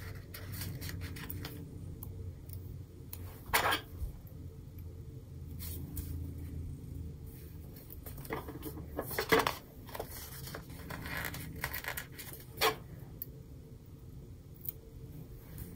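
Paper sticker sheets and planner pages being handled, stickers peeled off and pressed down with metal tweezers: soft rustling and light ticks, with three sharper clicks spread through.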